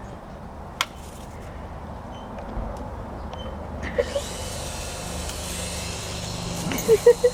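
Small electric motor of an Air Hogs toy helicopter buzzing steadily, with a dog barking briefly about four seconds in and three times in quick succession near the end. A single sharp click about a second in.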